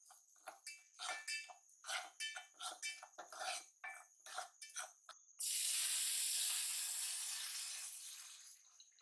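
A spoon scraping and clinking against a metal pot as semolina is stirred and roasted. About five seconds in, a sudden loud sizzling hiss as cold milk is poured into the hot pot, fading away over the next three seconds.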